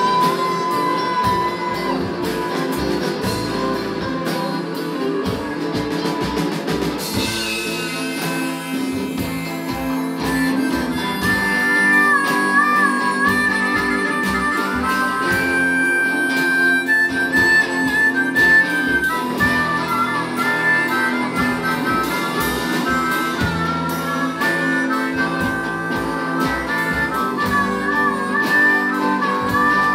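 Live blues band instrumental break: a harmonica played cupped against a vocal microphone takes the lead, with held notes and small bends from about ten seconds in, over electric guitar and upright bass.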